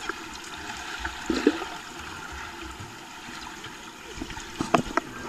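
Pool water heard through a camera held underwater: a steady muffled hiss and gurgle, with a brief louder muffled burst about a second and a half in and a few sharp clicks near the end.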